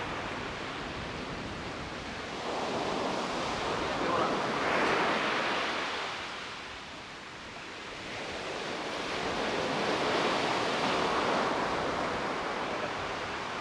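Ocean surf breaking over rocks and washing in, a steady rushing hiss that swells and fades as each set of waves comes in.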